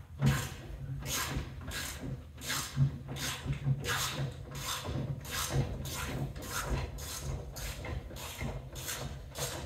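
Hand rubbing back and forth on the metal door-opening frame of a Peterbilt 379 sleeper bunk, a steady run of short scrubbing strokes about two a second, as in hand-polishing the frame.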